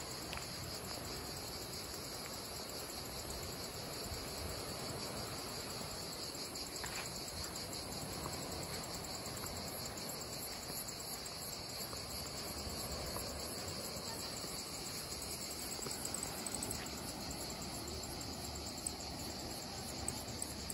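Insect chorus: a steady, high-pitched shrill buzz with a fast pulsing texture, over a faint even rushing noise.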